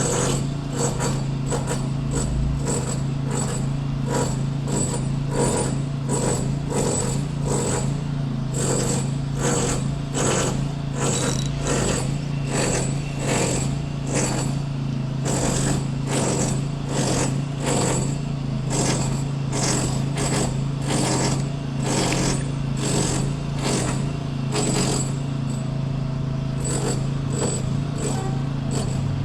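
Road-works machinery running: a steady low hum with a regular knocking beat about twice a second.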